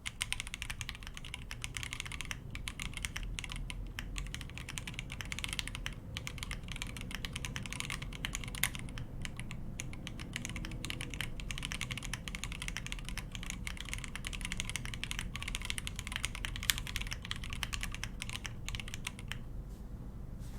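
Continuous fast typing on an Akko MOD 005 mechanical keyboard with stock, unlubed Akko Demon switches on an FR4 plate and Akko Psittacus keycaps: a dense, unbroken run of keystroke clacks that thins out briefly near the end.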